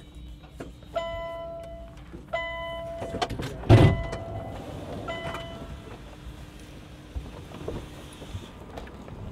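TGV passenger door opening at a station stop: two electronic warning beeps, about a second each, then a loud sudden release noise just before four seconds in, a short third beep, and a steady rushing noise for a few seconds as the door opens.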